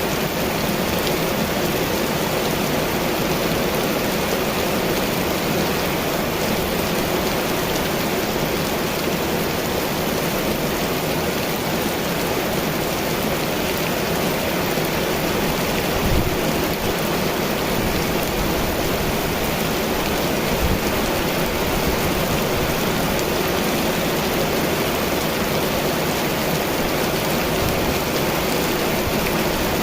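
Heavy rain falling steadily in a storm, with two brief low thumps a little past halfway.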